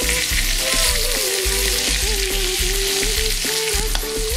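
Marinated chicken thighs sizzling in hot wok oil while a spatula turns them in the wok, with a steady frying hiss. A background music track plays underneath.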